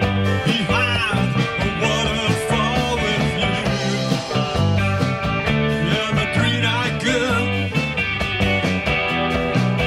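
Live rock band playing an instrumental passage through a PA: electric guitars, bass guitar and a drum kit, with a lead guitar bending notes over a steady bass and drum beat.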